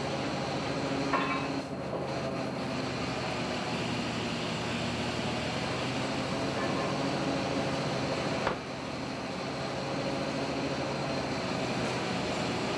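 Steady drone of a longliner's engine and deck machinery running while the line is hauled, with a sharp knock about a second in and another about two-thirds of the way through.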